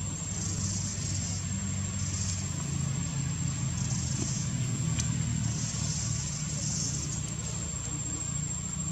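A steady low hum, like a motor running in the background, under a thin high whine and patches of high hiss that come and go, with one sharp click about five seconds in.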